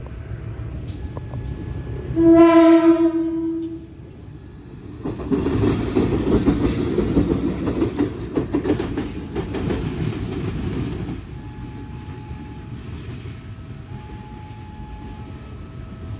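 A GE CC 201 diesel-electric locomotive, running light with no train, sounds one horn blast of about a second and a half. About five seconds in it passes close by, its diesel engine running and its wheels clicking over the rail joints, and the noise falls away after about eleven seconds.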